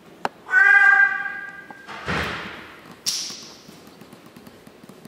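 A squeaky plush dog toy gives one long, steady, honking squeak lasting over a second as a chihuahua puppy bites on it. A dull thud follows, then a sharper knock about a second later.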